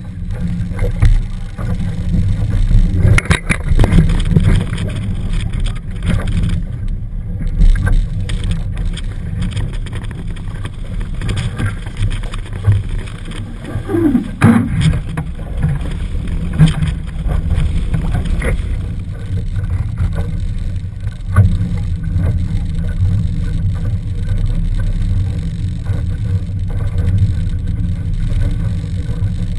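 Heavy wind rumble on a boat-mounted camera's microphone while a Laser dinghy sails through choppy sea, with water slapping and splashing against the hull in irregular sharp hits.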